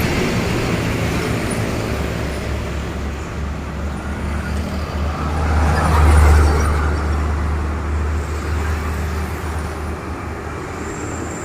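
Heavy trucks driving past on a road: a steady low engine rumble with tyre and road noise, swelling as one passes closest about six seconds in, then fading.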